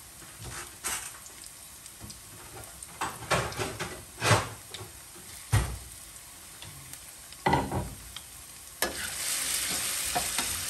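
Minced chicken and potatoes frying in a pan while a utensil stirs and scrapes them in several separate strokes. About nine seconds in the sizzle suddenly gets louder and stays steady.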